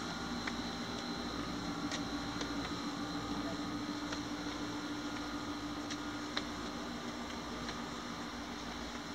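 Steady low hum and hiss with a few faint short ticks.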